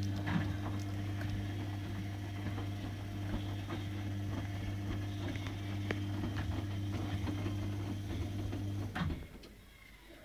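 A steady low hum that cuts off suddenly about nine seconds in, with faint scattered clicks and taps over it.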